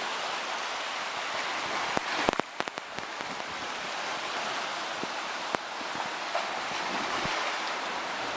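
Ocean surf washing in a steady hiss, with a quick cluster of sharp clicks and knocks about two seconds in.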